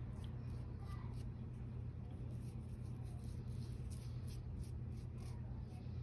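Faint scratchy ticks of a foam brush spreading Mod Podge onto a ceramic mug, over a steady low hum.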